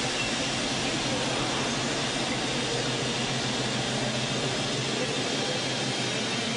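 Diesel shunting locomotive's engine running steadily, a low drone under a constant wash of railway-station noise.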